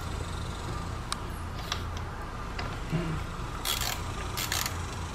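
Hand socket ratchet working a bolt on a motorcycle's gear shift linkage: a few light metal clicks, then two short bursts of ratcheting near the end.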